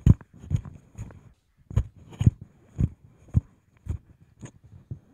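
Handling noise of a Pyle PDMICKT34 dynamic handheld microphone, heard through the mic itself: fingers tapping and rubbing its body and grip, giving about ten low thumps, roughly two a second, with faint rubbing between.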